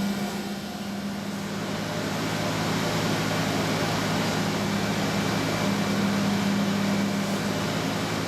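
Mori Seiki NMV1500 machining centre milling 7075 aluminium: a steady whirring hiss with a low hum that fades about a second in and comes back strongly near two-thirds of the way through.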